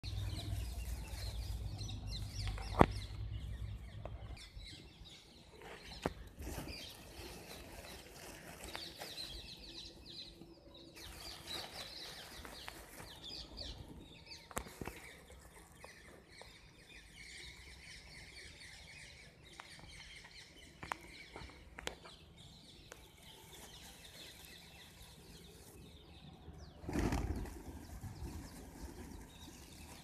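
A flock of feral pigeons feeding on a concrete path, with bursts of wing flapping, the loudest about 27 seconds in, and scattered sharp clicks. A low rumble runs through the first few seconds.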